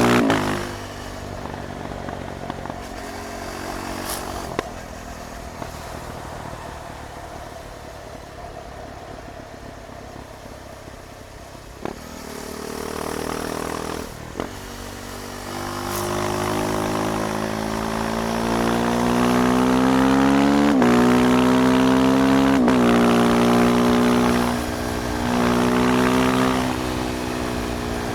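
KTM 390 Duke's single-cylinder engine under way. The throttle shuts at the start, and the engine runs low and quiet for a long stretch before pulling hard again, its pitch rising through the gears with quick upshifts a couple of seconds apart and a short lift of the throttle near the end.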